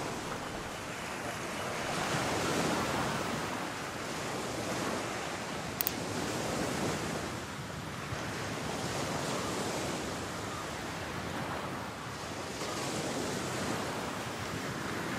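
Ocean surf washing onto the shore, swelling and fading every few seconds, with one short click about six seconds in.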